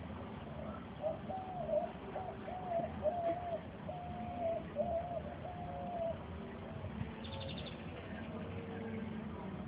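A run of short animal calls, each holding one steady pitch for about half a second. They come several at a time and unevenly through the first six seconds, then fainter and sparser.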